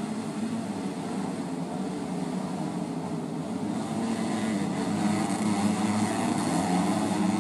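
Several dirt bike engines running and revving together in a steady buzzing drone, the pitch wavering up and down, growing slightly louder toward the end.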